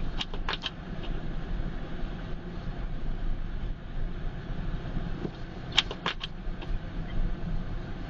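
A car driving, with a steady low rumble from the engine and tyres. There are two short runs of sharp clicks, one near the start and one about six seconds in.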